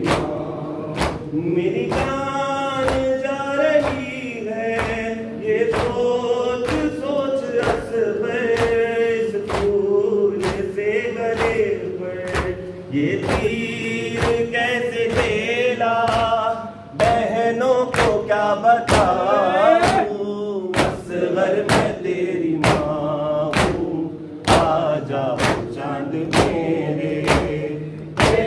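Men chanting a nauha (Muharram lament) in chorus, led by reciters. A steady beat of matam goes under it: open hands slapping against chests in time.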